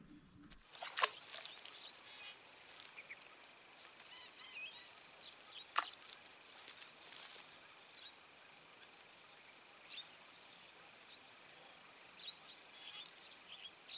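Steady high-pitched insect chorus buzzing without a break, starting about half a second in. A few short chirps and two sharp clicks sit faintly over it.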